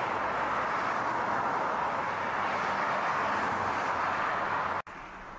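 Steady noise of busy road traffic, a background track of cars with no siren. It cuts off abruptly near the end and resumes more quietly.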